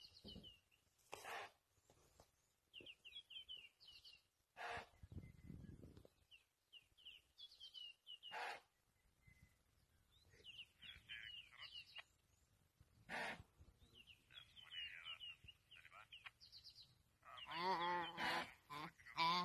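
A songbird calling in short chirping phrases again and again, with a few short knocks. About three seconds before the end, a young antelope held in a leopard's jaws starts bleating loudly, a wavering distress call.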